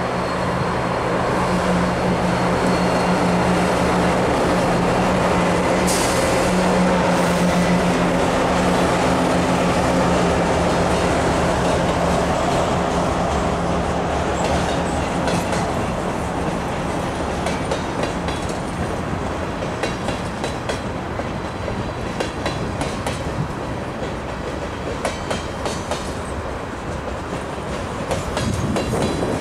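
A CN freight train passing at speed. For about the first twelve seconds the diesel locomotives' engines drone steadily. After that the cars roll by with a regular clickety-clack of their wheels over the rail joints.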